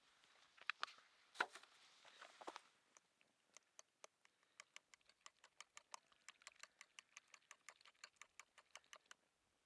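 Faint handling sounds: a few light knocks and rustles, then a quick, even run of light taps, about four a second, that stops shortly before the end.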